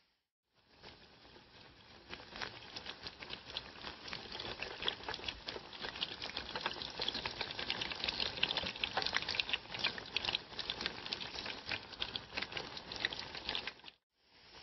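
Eggplant slices frying in hot oil: a steady sizzle with dense, rapid crackling pops. It builds up over the first couple of seconds and breaks off briefly just after the start and again near the end.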